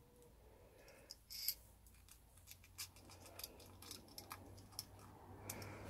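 Faint small clicks and ticks of a screwdriver working the tiny screws of a laptop hard drive's metal cradle, irregular, with one sharper scrape-click about a second and a half in.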